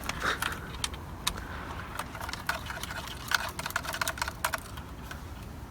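Irregular light clicks and taps of hand tools and small parts being handled during a steering wheel install, bunched in short runs a little past the middle.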